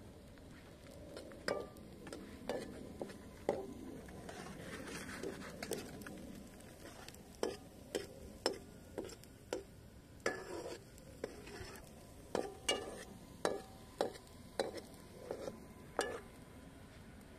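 Irregular sharp clicks and pops from cooking over an open wood fire, more frequent in the second half, over a faint sizzle.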